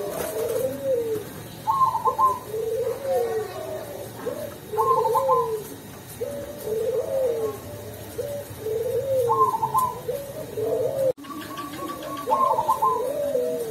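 A black 'cemani' zebra dove (perkutut) singing in the deep 'ulem' style: a run of rolling coos repeating every second or two, with a quick higher trilled note every few seconds.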